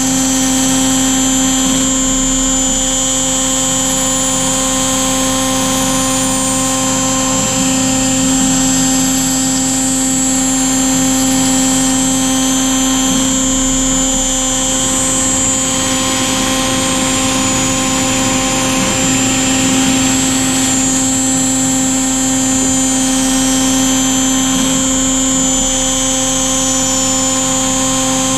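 CNC router spindle running with an end mill cutting a pocket in delrin (acetal plastic): a steady high whine with several fixed tones underneath. One of the middle tones drops out and comes back a few times.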